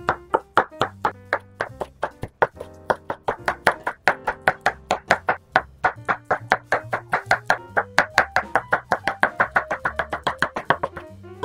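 Kitchen knife slicing a rolled thin egg sheet into fine strips on a wooden cutting board: quick, even knocks of the blade on the board, about five a second, getting a little faster in the second half and stopping near the end. Soft background music plays underneath.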